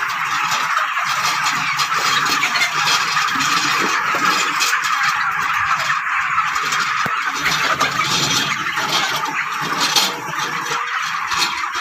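Manual litter raking machine pushed through broiler-shed litter, its frame and tines scraping and clattering over the clumped bedding, with a flock of chickens calling steadily behind it.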